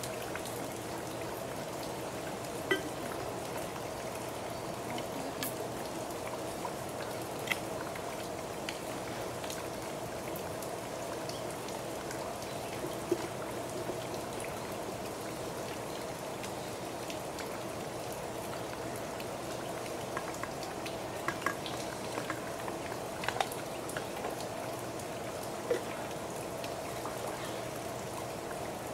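Steady splashing of running or falling water, with scattered sharp drip-like ticks.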